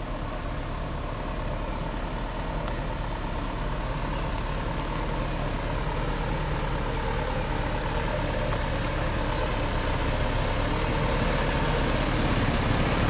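Mitsubishi Canter dump truck's diesel engine running steadily as the truck, heavily loaded with sand, approaches slowly, growing louder throughout.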